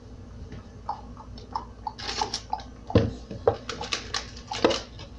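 A string of light clicks and knocks from supplies being handled on a table. The knocks grow busier after about two seconds, with a few sharper knocks about three and four and a half seconds in.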